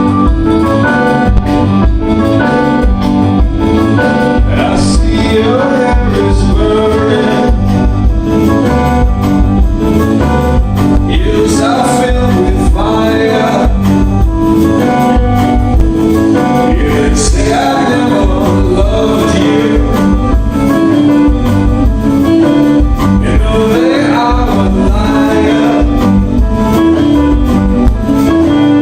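A live rock band playing loudly, with organ and heavy bass, and a singer's voice coming in over the music at times.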